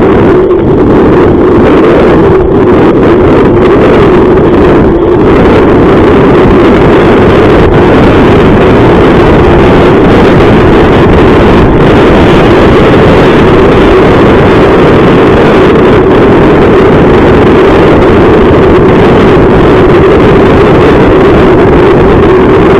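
Steady loud rushing of wind and motion noise on a moving onboard camera's microphone, with a constant low drone.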